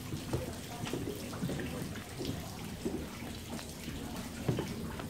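Water trickling in a small stone fountain basin, with irregular footsteps on stone paving.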